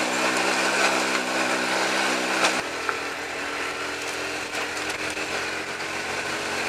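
Honda C90's small single-cylinder four-stroke engine running steadily under way, a buzzing note. About two and a half seconds in there is a click and the engine note changes abruptly.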